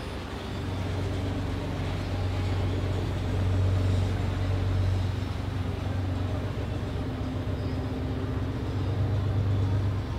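Motorboat engine running with a steady low hum that swells a little now and then.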